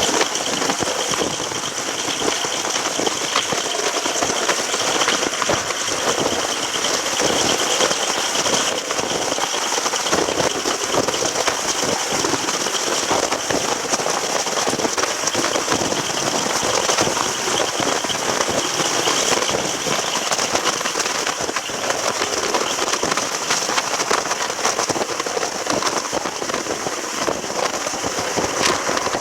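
Steady running noise of a train: a constant hiss with dense fine rattling and crackle, unchanging throughout.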